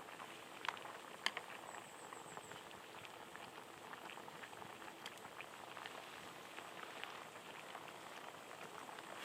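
Shabu-shabu broth bubbling steadily in a pot, a dense patter of small pops, with two sharper clicks about a second in.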